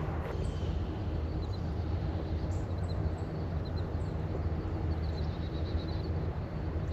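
Steady low drone of oil field machinery running, with faint short bird chirps above it.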